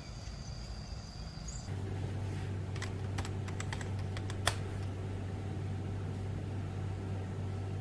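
Open-air ambience with a steady high whine, cutting about two seconds in to a room with a steady low hum. A handful of light clicks and taps follow, one sharper tap near the middle the loudest.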